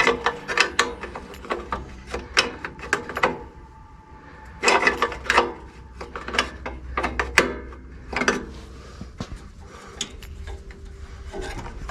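Bursts of quick, sharp ratchet-like clicks and small rattles from hand tools and small metal and plastic parts being worked, with quieter stretches between the bursts.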